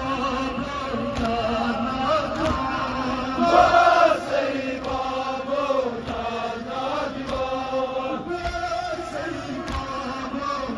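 Kashmiri noha, a Muharram lament, sung by male voices over a loudspeaker, with a crowd of mourners chanting along. Dull thumps of chest-beating (matam) recur about once a second.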